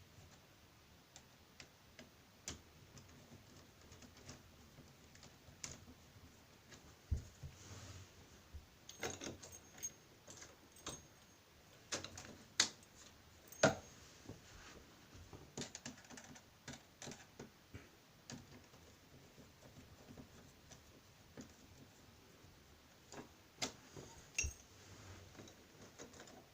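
Irregular metallic clicks and taps from hand work on a door deadlock and its screws, a few sharper knocks near the middle, some with a brief high ring.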